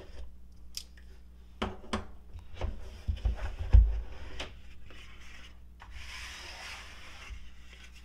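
A cardboard tool box being handled on a wooden tabletop: scattered taps and scrapes, a thud about four seconds in as the box is turned over, then a rubbing hiss near the end as the snug lid slides off.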